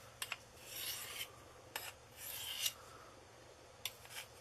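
Cold Steel Pendleton Lite knife blade stroked across a wet natural sharpening stone: two sweeping strokes with a scraping hiss, about a second and a half apart, with a few short clicks between them.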